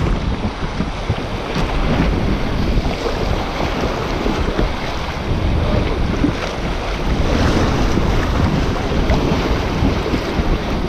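Wind buffeting the microphone over lake water splashing and lapping around a kayak.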